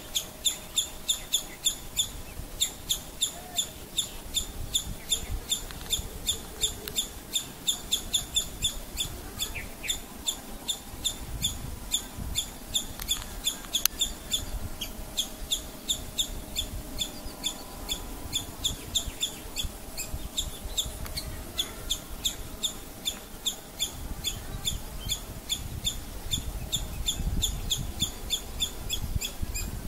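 Squirrel giving its alarm call: a sharp, high chip repeated evenly about three times a second, the call of a frightened squirrel.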